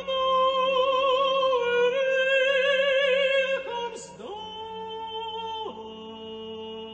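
A female opera singer (mezzo-soprano) sings long held notes with wide vibrato over a soft, sustained low note. The voice is loud for the first three seconds or so. It then slides down and goes on more quietly on lower, steadier notes.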